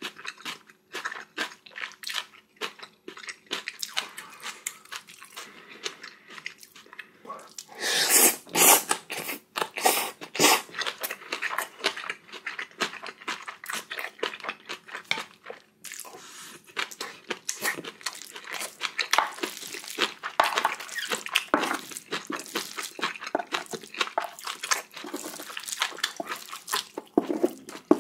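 Close-miked eating: a person chewing and crunching mouthfuls of spicy bibimbap and kimchi, a dense run of wet clicks and crunches with louder stretches about eight seconds in and around twenty seconds.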